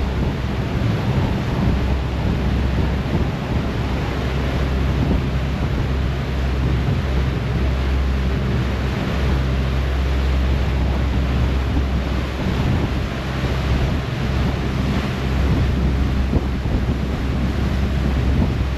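Passenger ferry under way: its engine running with a steady low drone under the rush of the churning wake, and wind buffeting the microphone.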